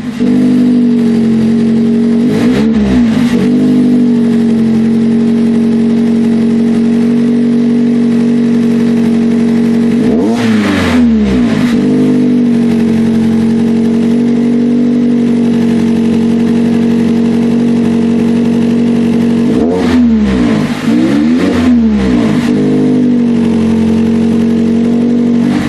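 A motor running steadily at a constant, fairly high pitch, which sags and comes back up three times.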